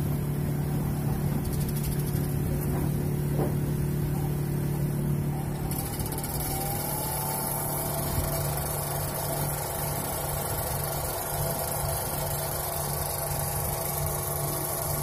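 Aftron AFW76100 semi-automatic washing machine's motor and belt drive running: a steady hum, joined about six seconds in by a higher whine that rises in pitch and then holds.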